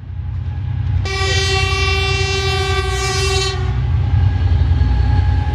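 High-speed electric train passing at speed with a steady low rumble. About a second in it sounds one long, steady horn blast lasting about two and a half seconds.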